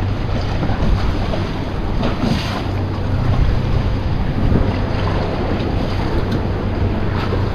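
Strong wind buffeting the microphone over choppy water around a small boat: a steady low rumble with hiss.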